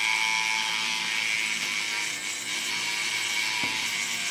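Estrela RoboCom toy robot's small electric motor and gears whirring steadily as it runs its walking action and moving TV pictures, with its motor freshly repaired.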